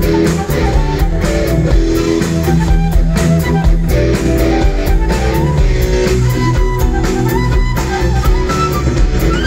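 Rock band playing live: a flute carries the melody over bass guitar, electric guitar and a drum kit keeping a steady beat.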